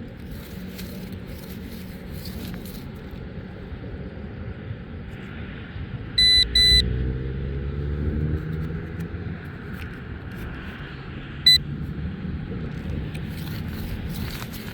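Short, high electronic beeps from a Nokta metal detector, two close together about six seconds in and one more near the end, over a low rumble of wind on the microphone.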